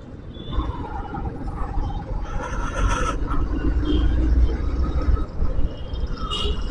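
Road traffic rumbling steadily, with a wavering high tone about half a second in and a short rush of hiss near three seconds in.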